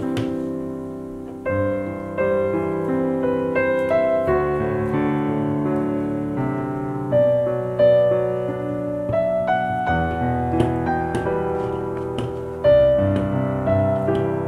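Background piano music: a gentle melody of struck notes, each fading after it is played, with new chords about every second or two.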